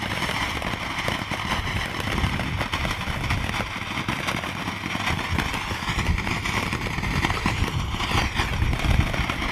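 Sword-shaped spark-shower firework (a night saber) burning: a steady hiss dense with small crackles, which cuts off at the very end.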